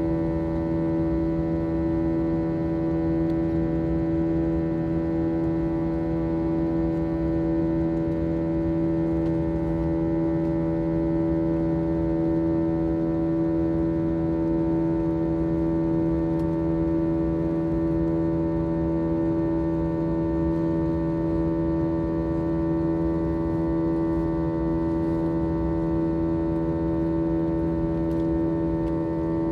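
Aircraft engine drone: a steady, unchanging low hum with a stack of overtones over a rumble, which the uploader presents as an abnormal sound from the plane's engine.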